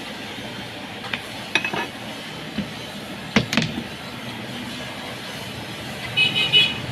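A few sharp clicks and knocks, as of metal parts of a hammer drill being handled, over a steady background hiss, with a short burst of ringing clinks near the end.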